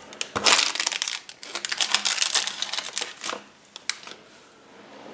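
Thin clear plastic toy wrapper crinkling and crackling as it is torn open by hand, in a dense run for about three seconds that then dies away to a few faint rustles.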